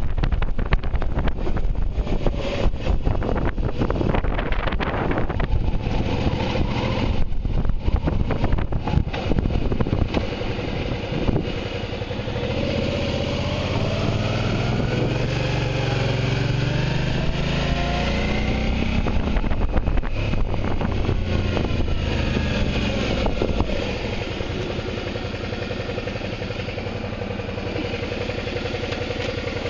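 Wind buffeting the microphone as a Suzuki motorcycle rides along. Then the engine comes through, its pitch falling and rising as the bike slows. After it drops in level, it settles to a steady, quieter idle for the last few seconds.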